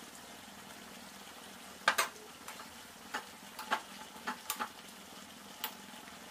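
Spoon stirring a thick curry in a metal kadai, scraping and knocking against the pan in scattered sharp clicks, loudest about two seconds in, over a faint steady hiss.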